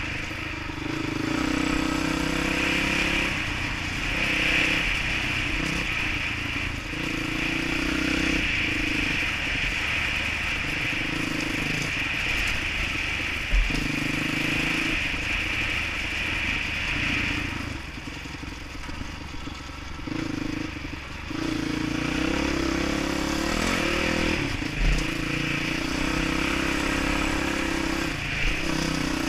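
Dirt bike engine running along a trail, its pitch rising and falling with the throttle. The engine eases off for a few seconds past the middle, and there are two sharp knocks, about halfway and near the end.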